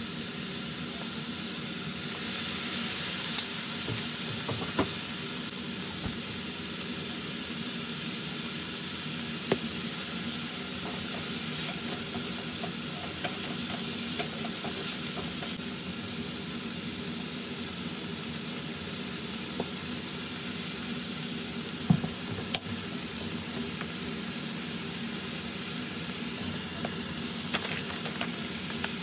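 Beef and onion slices sizzling steadily in a hot frying pan, with now and then a sharp click or scrape of a spatula stirring them. The sizzle swells for a couple of seconds near the start.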